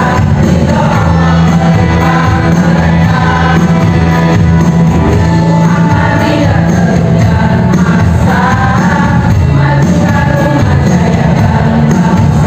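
Women's choir singing, loud and continuous.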